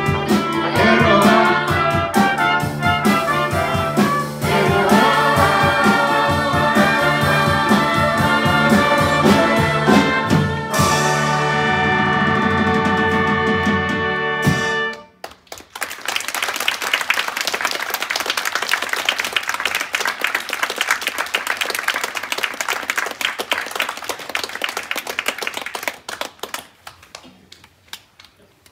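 Big band with trumpets and trombones playing the final bars of a number, ending on a long held chord that stops abruptly about fifteen seconds in. The audience then applauds for about ten seconds, and the applause fades away near the end.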